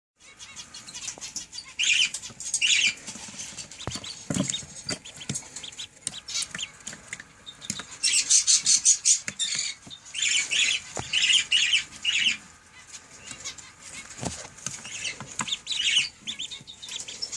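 Baby ducklings and chicks peeping: clusters of short, high-pitched peeps, busiest about eight to twelve seconds in, with small clicks and taps in between.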